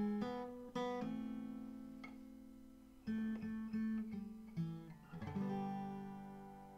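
Acoustic guitar music: chords strummed and picked every second or two, each left to ring and die away.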